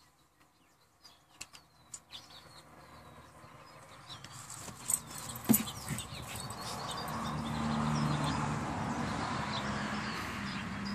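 Small birds chirping in the background. There are a few sharp clicks in the first half and a louder knock about halfway. A steady rushing noise with a low hum builds up over the second half and becomes the loudest sound.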